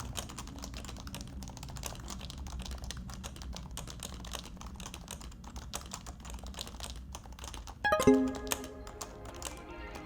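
Rapid, continuous typing on a Happy Hacking Keyboard, its keys clicking and clacking in quick irregular runs, over a quiet music bed. A ringing chime sounds about eight seconds in.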